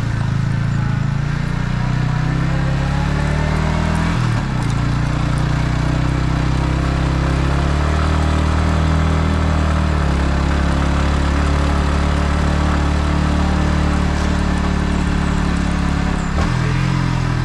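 Yamaha MT-15's single-cylinder engine with its stock exhaust running steadily under way, with wind rush over it. The engine note drops sharply at a gear change about four seconds in, and breaks briefly again near the end.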